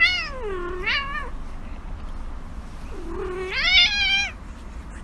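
A cat meowing: two long, drawn-out meows that rise and fall in pitch. The first carries over into the start and the second comes about three seconds in.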